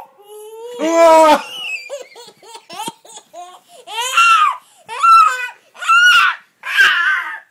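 A small child laughing: one loud high-pitched outburst about a second in, then a run of four loud bouts of laughter, about one a second, from about four seconds in.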